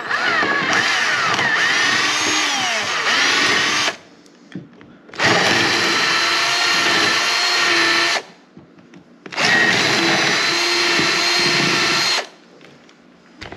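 Cordless drill running in three bursts of about three to four seconds each, enlarging pilot holes with an 11/64-inch bit. In the first burst the pitch rises and falls as the speed changes; the other two run at a steady speed.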